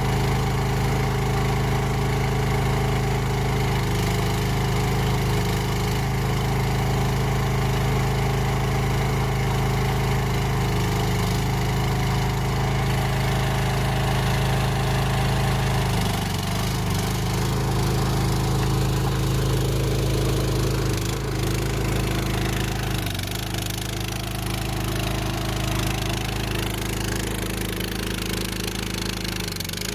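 Small Chinese skid steer's engine running steadily under load, powering a hydraulic trencher attachment. The engine note sags and wavers briefly about halfway through and again a few seconds later as the load changes.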